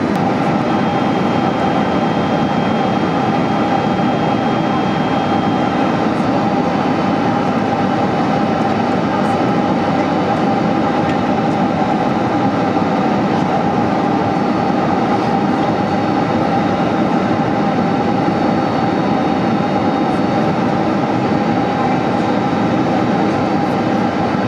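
Steady roar of airflow and jet engines heard inside an airliner's cabin, with a steady hum running through it.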